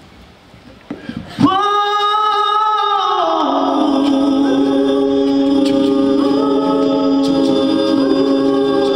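Mixed a cappella vocal group singing the opening of a song. A single voice comes in with a held note about a second and a half in, and about two seconds later the other voices join it in a sustained chord.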